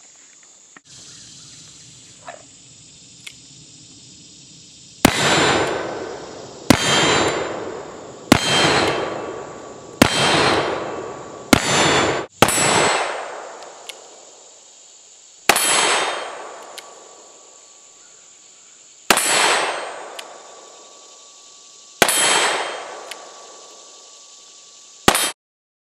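A series of about ten shots from a .44 Uberti 1860 Army black-powder cap-and-ball revolver. Each shot is followed by a long, fading metallic ring from a steel target being hit. The last shot is cut off abruptly.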